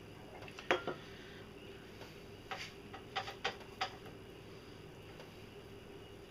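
Corn grinder grinding taro for poi, giving scattered metal clicks and knocks: a loud knock about a second in, then a quick run of clicks a couple of seconds later.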